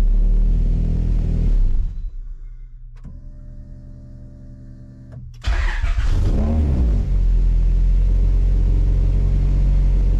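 1992 Honda Prelude's H23 engine idling, shut off about two seconds in, then restarted about five and a half seconds in: a short crank catches and the engine settles back to a steady idle. A faint steady hum fills the pause while it is off.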